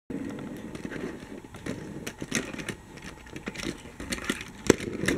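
Plastic toy bus rolling on a play mat with a low rumble and scattered clicks and knocks. Near the end it gives a sharp plastic knock, the loudest sound, as it bumps over the toy tram track against the toy tram.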